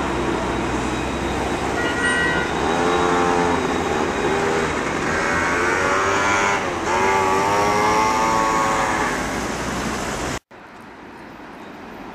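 Alstom Citadis trams and road traffic passing at a street crossing, with pitched vehicle whines rising and falling through the middle. The sound cuts off abruptly near the end to a much quieter background.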